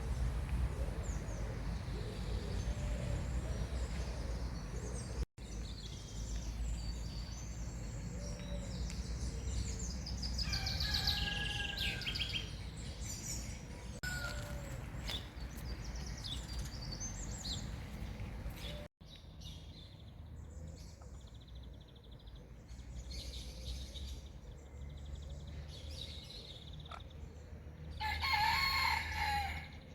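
Small songbirds chirping on and off, with a rooster crowing once, loudly, near the end.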